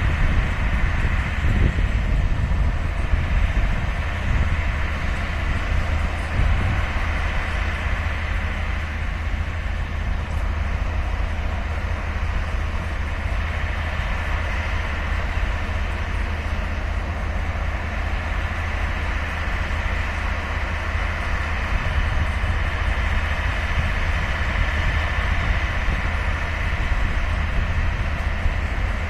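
Taiwan Railway R100-class diesel-electric locomotives running as they pull away into the distance, giving a continuous low rumble with a steady higher whine.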